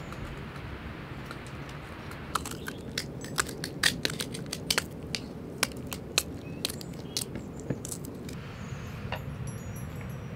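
A small knife slicing through hot green chili peppers held in the hand, each cut a short sharp snap, irregular at about two a second, starting about two seconds in and stopping about two seconds before the end.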